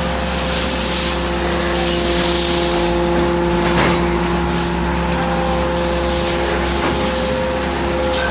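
Hydraulic metal baler running: a steady drone and hum from its hydraulic power unit, with two short bursts of hiss in the first few seconds and a sharp crack a little before the middle.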